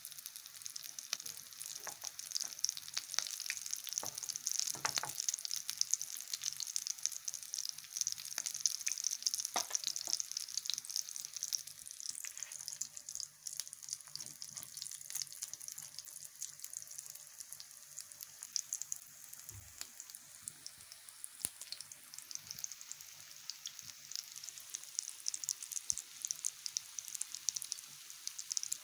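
Potato-and-wheat-flour fritters (maaqouda) sizzling and crackling in hot frying oil in a pan. The hiss is strongest in the first dozen seconds, eases off, then picks up again, with a few sharp clicks along the way.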